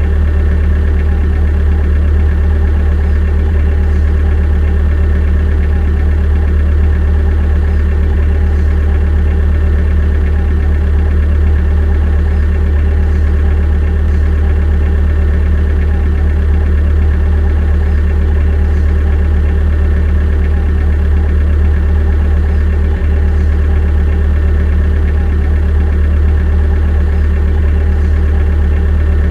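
Steady engine idling sound, a deep even drone with a fainter higher hum, holding the same pitch with no revving.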